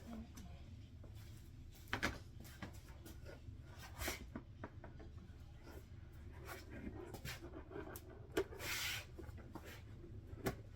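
Intermittent light knocks and clicks from handling tools and wood, with a short rubbing scrape about eight and a half seconds in. No power saw is running.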